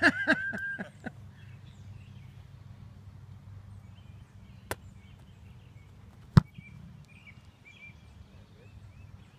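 An American football being punted: the kicker's foot strikes the ball once with a sharp smack about six seconds in, after a fainter click a second and a half earlier. Faint bird chirps carry on throughout.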